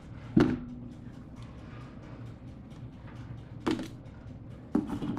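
Parts of a car stereo kit being handled and set down: a sharp knock about half a second in, then three smaller knocks near the end.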